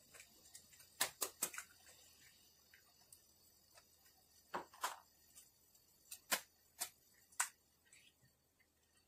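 An egg being cracked on a steel wok and dropped into water heating on a portable gas stove: a quick cluster of sharp taps about a second in, then several more single clicks, over a faint steady hiss.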